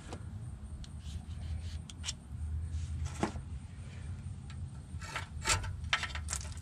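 Hose clamp being fitted around a loose, rusted exhaust tailpipe: scattered light metallic clicks and rubbing as the clamp and pipe are handled, with a quick run of sharper clicks near the end, over a steady low rumble.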